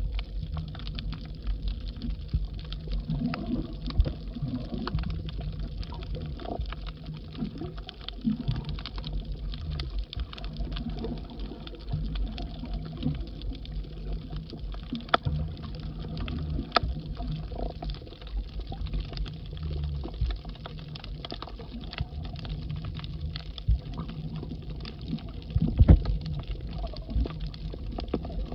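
Muffled underwater water noise picked up by a submerged camera: a low rumble of moving water with scattered clicks and crackles, and one louder thump near the end.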